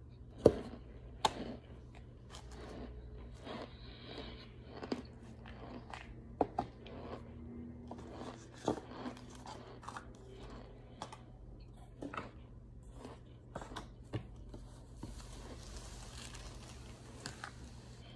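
Dry, chalky white chunks crunching as they are bitten, chewed and snapped apart by hand: irregular crisp crunches and cracks, the loudest about half a second and a second in. Near the end a softer, steadier rustle of a cloth towel being rubbed.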